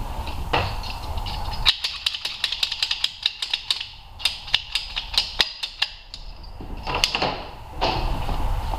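Hand-work clicks and taps from pliers and spring hose clamps being handled and fitted on rubber fuel hoses: a run of sharp clicks, several a second, lasting a few seconds, then a couple more near the end.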